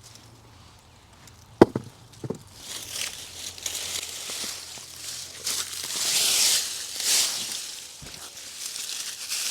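Two sharp knocks of a tool striking soil, then rustling and scraping as sweet potato vines and dirt are pulled aside and dug through, rising and falling in swells.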